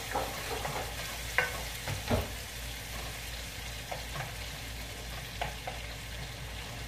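Diced bacon and onion sizzling as they brown in a frying pan, with a wooden spatula scraping and tapping the pan every second or so as it is stirred.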